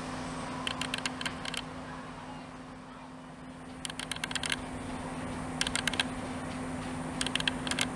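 Diesel multiple units idling at the platforms with a steady low engine hum. Over it come bursts of rapid sharp clicks, a cluster every second or two.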